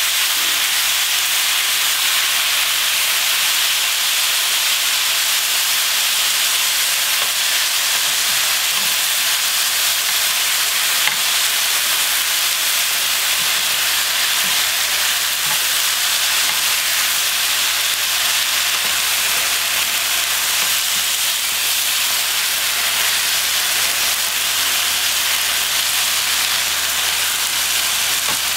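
Pan-fried tofu cubes, enoki mushrooms and a soy-chili sauce sizzling steadily in hot oil as they are stirred with wooden spatulas; the seasoning is boiling down around the tofu.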